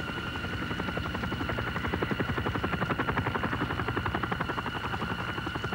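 Helicopter rotor chopping in a rapid, even pulse of several beats a second, loudest in the middle, over a steady high whine.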